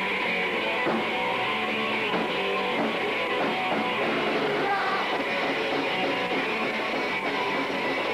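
Hardcore punk band playing live: electric guitar and drum kit in a loud, steady wall of sound.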